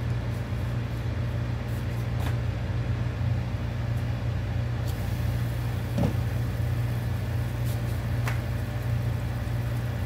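A pot of chicken soup at a boil under a steady low hum. The glass lid is lifted off about five seconds in, the bubbling hiss grows louder, and the lid is set down with a light knock about a second later.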